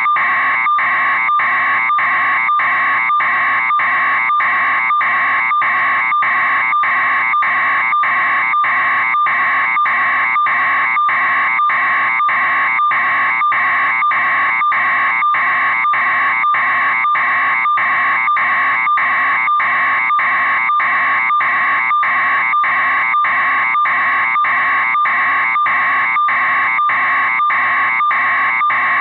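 Railroad grade-crossing warning bell ringing continuously in a rapid, even ding-ding rhythm, still active while the stopped train occupies the crossing.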